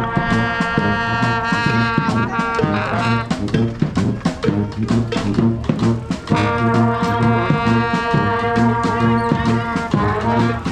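Street brass band playing live: the horns hold two long chords, one at the start and one from about six seconds in, over a steady drumbeat.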